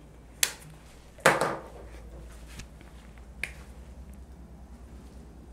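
Sharp clicks and a short clatter from a whiteboard marker and a textbook being handled, the loudest about a second in, then the marker tapping onto the whiteboard and faint writing strokes.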